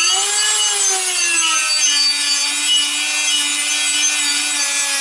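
Small electric rotary tool with a sanding bit running against the cast-iron brake disc, a steady motor whine over a high grinding hiss. The pitch sags slightly about two seconds in and then holds steady. The disc surface is being sanded smooth to stop the brakes squealing.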